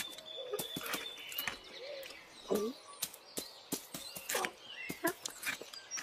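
Cartoon countryside ambience of birds chirping throughout. A few short cat noises cut through it, sniffs and small vocal sounds, about two and a half and four and a half seconds in.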